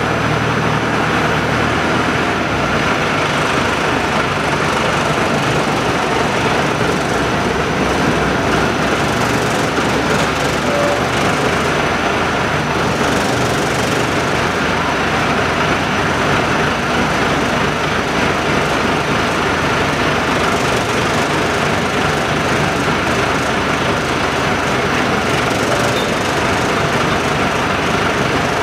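Small wheel loader's engine running steadily as it lifts its bucket over a feed hopper.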